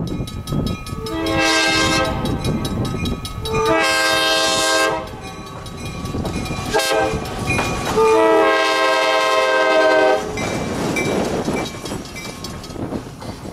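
EMD SW8 diesel switcher sounding its horn in three blasts, the first short and the last the longest, over the locomotive's running and rolling noise.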